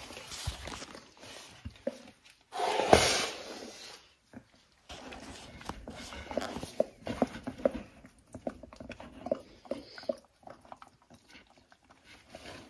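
A whelping dog licking at her rear as her first puppy is being born, making a run of short, soft wet licking sounds in the second half. There is one louder burst of movement noise about three seconds in.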